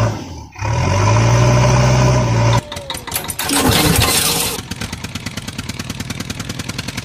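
Tractor engine sound effect for toy vehicles: a steady diesel-like drone that dips and revs back up, breaks off abruptly, then a stretch of hiss with a falling whine, ending in a fast, even chugging idle.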